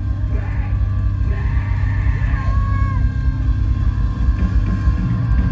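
Live band music blaring through a concert PA, heard from the crowd: a heavy, booming bass-and-drum low end with a held melody line that slides in pitch at the end of its notes.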